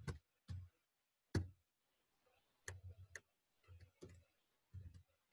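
Faint computer keyboard keystrokes: about ten separate key clicks at an uneven typing pace, with a few gaps of a second or so between them.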